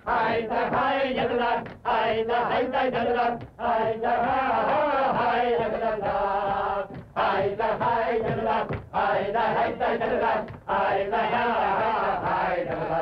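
A crowd of men chanting and singing together, a rhythmic dance tune in short phrases with brief breaks between them, heard on an old 1930s film soundtrack.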